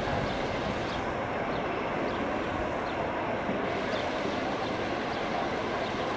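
Steady distant outdoor city hubbub: the murmur of a large gathered crowd mixed with traffic, heard from high above, with a few faint short bird chirps.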